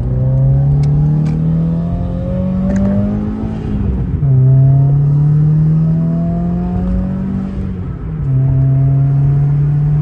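Subaru WRX's turbocharged flat-four engine accelerating hard, heard from inside the cabin: the engine note rises steadily, falls sharply at an upshift about four seconds in, rises again, and falls at a second upshift about eight seconds in before climbing once more.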